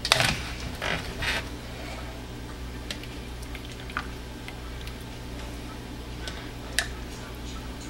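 Quiet handling of plastic containers: a few light clicks and knocks as plastic measuring pitchers are set on the counter and thick soap batter is poured from a plastic tub into one, over a steady low hum.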